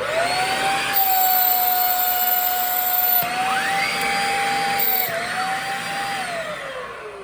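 Shark Rocket stick vacuum switched on and running with a steady motor whine, its pitch stepping a couple of times, then winding down with a falling pitch near the end as it is switched off. It sounds pretty plugged up: a clogged filter choking the airflow.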